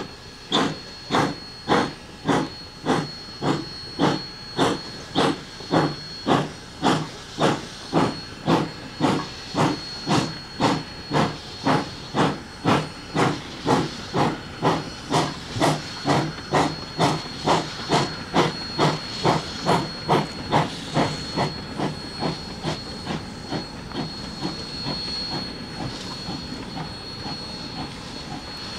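Rio Grande Southern #20, a narrow-gauge 4-6-0 steam locomotive, working a freight train: sharp exhaust chuffs at about two a second over a steam hiss. About two-thirds of the way through, the chuffs soften into a lighter, steadier hiss.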